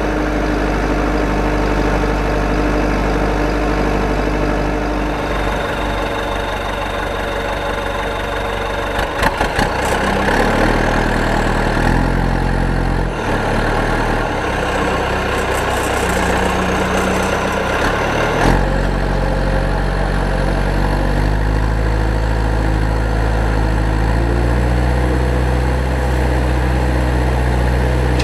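A steady, loud engine-like idling drone whose low pitch shifts in steps every few seconds, with a few clicks about nine to ten seconds in.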